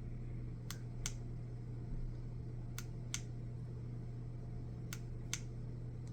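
Three pairs of sharp light clicks, the pairs about two seconds apart, over a steady low hum.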